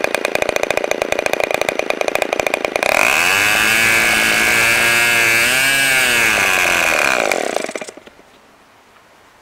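Enya SS40BB model glow engine, a two-stroke .40 with an APC 11x6 propeller, running with an uneven pulsing note. About three seconds in, the fuel line is pinched and the engine leans out and speeds up into a loud, high steady whine that wavers, then winds down and dies about eight seconds in: the usual way of shutting off a glow engine.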